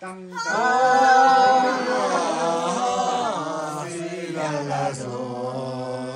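A group of men and women singing a song together without instruments, several voices holding long notes at once.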